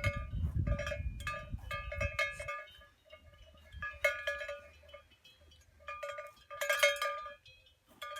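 Metal bells hung around the necks of grazing livestock, clanking irregularly as the animals move: several bells of different pitch, with louder clusters of clanks about four seconds in and again near the end. A low rumble runs under the first two and a half seconds and stops abruptly.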